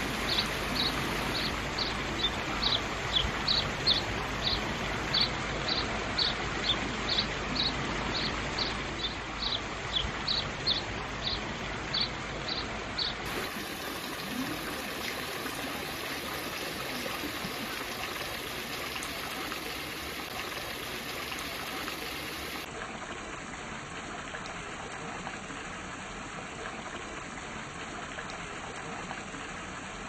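A short high chirp repeated about twice a second, then, after about 13 seconds, the steady splashing and trickling of a tiered stone fountain, its water falling from the tiers and from spouting stone lions into the pool.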